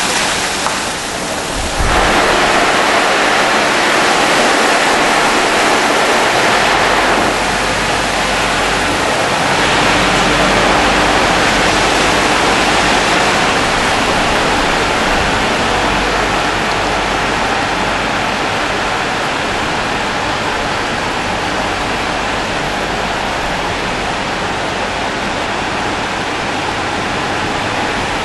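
Automatic rollover car wash running: water spraying and large rotating brushes over a car, a steady rushing hiss. It dips briefly about a second in, then comes back louder.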